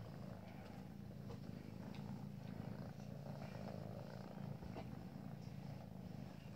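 A domestic cat purring steadily, a low continuous rumble, with a couple of faint clicks.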